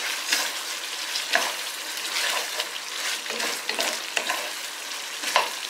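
Beef being stirred into a sizzling pan of spiced coconut-milk sauce: a steady sizzle with the utensil scraping and knocking against the pan at irregular intervals of about a second.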